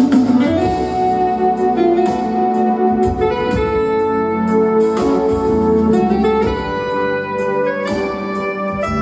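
Instrumental interlude of a Malayalam Christian devotional song: keyboard music with held organ-like chords, a stepping piano-like melody and a steady light percussion beat. A sung note trails off right at the start.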